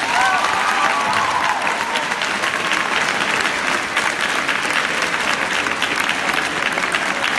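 Audience applauding, the dense clapping starting right as the music ends and holding steady.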